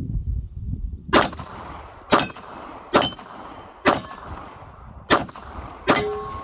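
Six .45 ACP pistol shots from a Glock 41 Gen 4, fired about one a second, each a sharp crack; some are followed by a short metallic ring from the hanging steel plate targets being hit.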